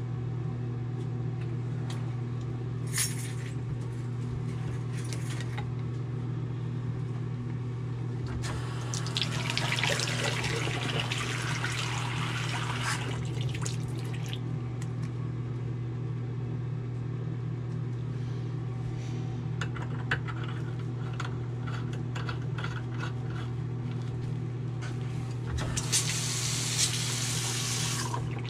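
Bathroom sink faucet running water into the basin and down the slow drain, louder about a third of the way in and again near the end, over a steady low hum.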